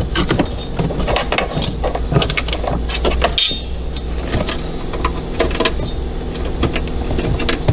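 Irregular clicks, knocks and plastic rattles of wiring-harness plugs being handled and pushed back onto a Tesla Model S media control unit (MCU), over a steady low hum.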